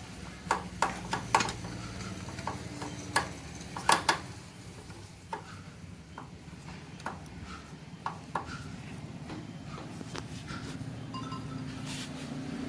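Scattered sharp metallic clinks and knocks of hand tools and small motorcycle engine parts being handled, thickest in the first few seconds, over a low steady hum.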